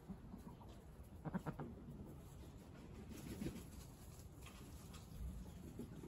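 Indian Runner ducks calling quietly: a quick run of low quacks about a second in, and another low call about three and a half seconds in.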